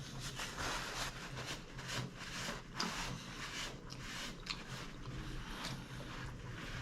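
Close-miked chewing of a mouthful of taco salad: irregular wet smacks and small crunches, several a second.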